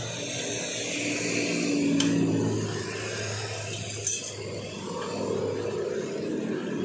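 Metal hand tools clinking on a scooter's rear-wheel hardware during a tyre change, with two sharp clinks about two seconds apart, over steady traffic noise.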